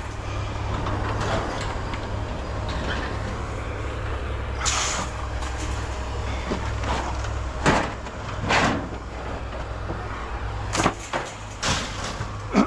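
A vehicle engine idles with a steady low hum, while scrap is handled with about half a dozen sharp knocks and clanks spread over the second half.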